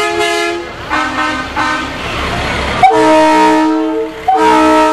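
Tow truck horns honking: a few short blasts, then two longer, louder blasts starting about three seconds in and just after four seconds.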